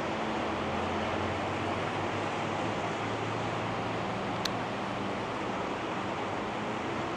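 Steady hiss of rain falling during a thunderstorm, with a faint low hum underneath and one small click about four and a half seconds in.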